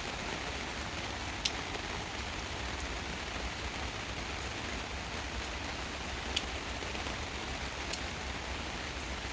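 Steady rain falling in a gentle rainstorm, an even hiss with a few sharp drops striking close by, the clearest about a second and a half in and again after six seconds.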